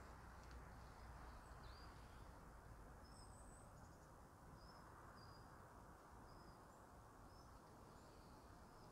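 Near silence: quiet outdoor ambience with a steady low background hum and a handful of faint, brief, high-pitched bird chirps scattered through it.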